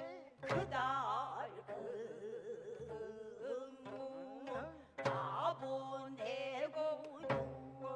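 Gayageum byeongchang: women singing in pansori style with wide, wavering vibrato while plucking gayageum strings, over a drum accompaniment.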